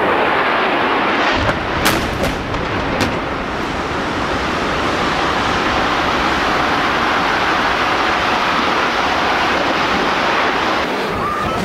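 Loud, continuous roar of a jet airliner crashing into a skyscraper and the fireball exploding, with two sharp cracks about two and three seconds in.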